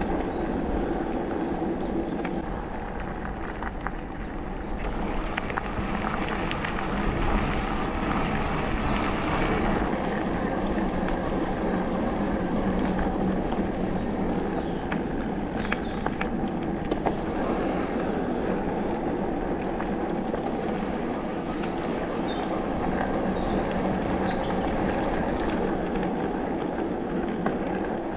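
Haibike electric mountain bike rolling along a dirt forest track: steady rumble of knobby tyres on the ground with rattling from the bike.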